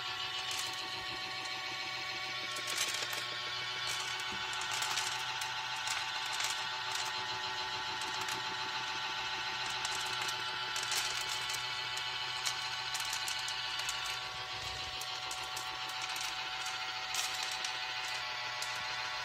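Small electric motor of an automatic pet feeder running with a steady whine, with irregular clicking and rattling over it.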